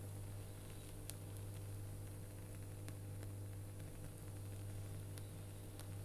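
Steady low mains hum with a few faint clicks and light surface noise from a turntable's Shure M75-6S cartridge tracking the silent lead-in groove of a record.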